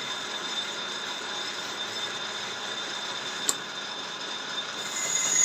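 Conventional metal lathe running, a steady machine noise with several fixed whining tones. A single sharp click about three and a half seconds in, and near the end a high, steady squeal sets in and grows louder.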